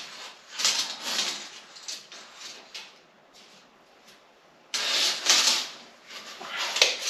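Short bursts of scraping and rustling handling noise, a quiet gap in the middle, then a sudden louder stretch of the same kind about five seconds in.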